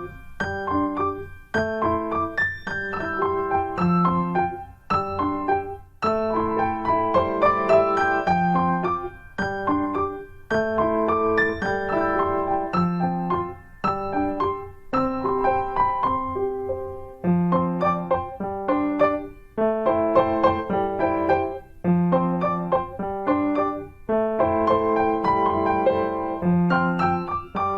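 Background piano music: a gentle melody of struck notes played in short phrases with brief pauses between them.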